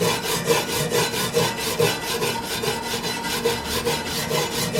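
Hand wire brush scrubbing back and forth over fresh MIG weld beads on steel, cleaning them up after welding, in quick even strokes about three to four a second.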